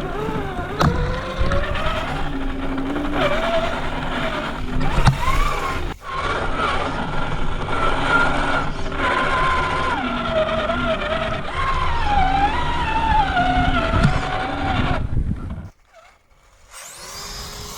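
Brushed electric motor and drivetrain of a Traxxas Summit RC truck whining as it drives over rough forest ground, the pitch rising and falling with the throttle over a rattling, crunching noise. Near the end the sound briefly drops out, and a quieter, steady hum follows.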